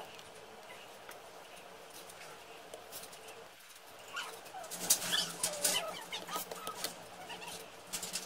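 Plastic clicks and snaps of a laptop's bottom cover being pressed down onto its clips, the loudest about five seconds in. From about four seconds in, background calls that rise and fall in pitch run alongside the clicks.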